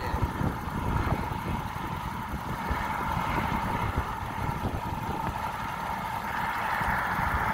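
Helicopter turbine engines running on the ground: a steady whine that grows slowly louder, with wind buffeting the microphone.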